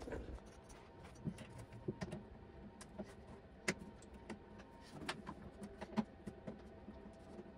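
Faint, irregular clicks and taps of a folding hex-key tool and small latch hardware handled against a hard saddlebag and its lid. The sharpest clicks come about three and a half and six seconds in.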